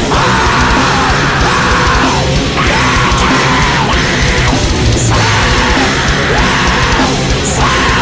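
Loud heavy rock music from a recorded band track.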